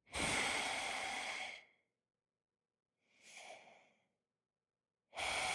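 A man's heavy, drawn-out creepy breathing into a telephone. A long breath comes first, then a short one about three seconds in, then another long breath that starts near the end.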